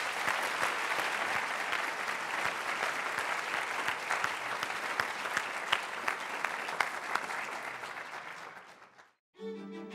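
Audience applauding, dense clapping that tapers off about nine seconds in. After a brief silence, music starts right at the end.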